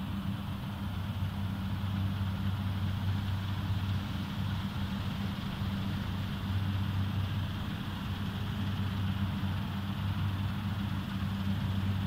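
Claas Lexion 740 combine harvester running while harvesting rye: a steady engine drone with a deep, even hum.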